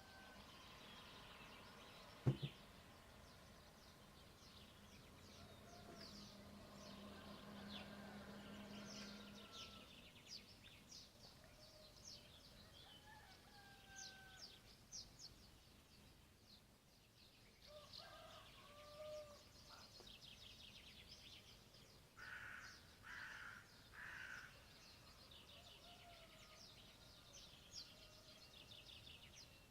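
Faint dawn birdsong: many small birds chirping and whistling throughout, with three louder, harsher calls close together near the end. A single sharp click about two seconds in, and a low hum for a few seconds early on.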